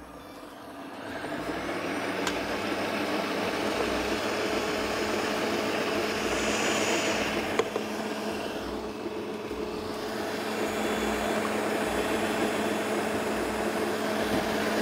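Moulinex stand mixer's motor running, its beater whisking eggs and sugar in a steel bowl. The motor builds up over about the first second and then runs steadily.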